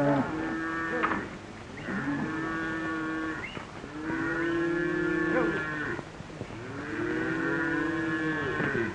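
A herd of cattle lowing: about four long moos follow one after another, some overlapping, each rising and then falling in pitch.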